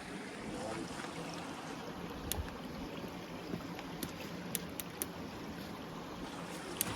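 Stream water flowing steadily, with a handful of short, sharp clicks scattered through.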